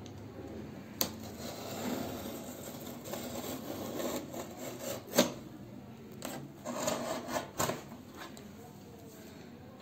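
A utility knife's blade slitting and scraping along the packing tape on the edges of a cardboard box, in uneven scraping strokes with a few sharp clicks of the blade and box, the loudest about five seconds in.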